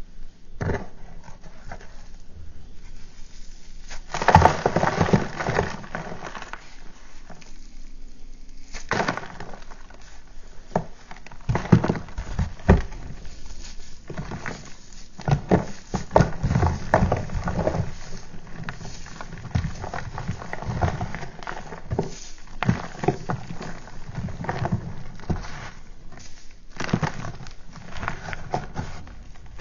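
Blocks of gym chalk being snapped and crushed by hand: repeated dry crunches and cracks, with crumbled pieces and powder falling into the tray. The crunching starts a few seconds in and comes thick and fast through the rest.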